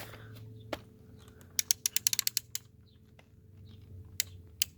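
Sharp plastic clicks from a Nerf blaster being worked and reloaded: one click, then a quick run of about ten clicks in a second, then two more single clicks. The blaster is jamming and not feeding darts properly, and the owner takes it for broken.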